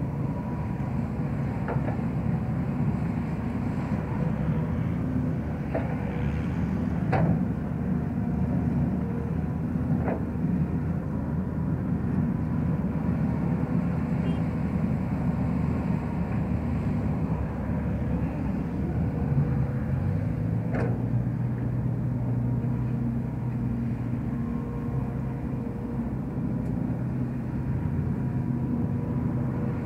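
Sumitomo hydraulic excavator's diesel engine running under load as it digs dirt and swings to dump it into a tracked dump carrier. A few sharp knocks and clanks of the bucket and dirt come through, and a steadier low engine hum joins at about two-thirds of the way.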